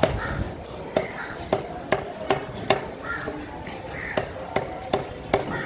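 Large fish knife chopping cobia steaks into chunks on a wooden chopping block: about ten sharp knocks of the blade striking the wood, irregularly spaced, some in quick runs of three or four.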